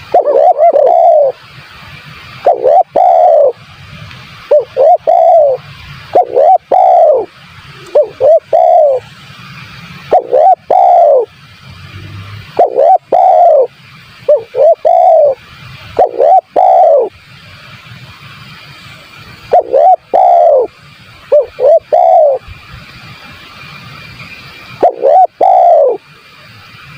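Spotted dove (tekukur) cooing: loud phrases of two to four low, rounded coos repeated every one to two seconds, with a faint steady hiss between phrases.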